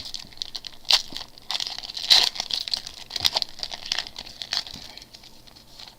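Trading card pack wrapper being torn open and crinkled in the hands, a dense crackle with sharp snaps, loudest about two seconds in and fading out near the end.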